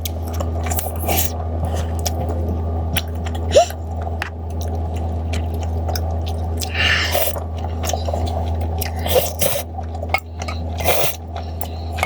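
A person chewing and eating, with scattered small clicks and mouth noises and a few short scrapes. These sit over a steady low hum that runs throughout.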